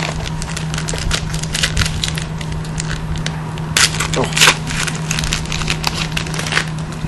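Foil trading-card pack being torn open and handled, an irregular run of crinkling and crackling with the sharpest crackles about four seconds in. A steady low hum runs underneath.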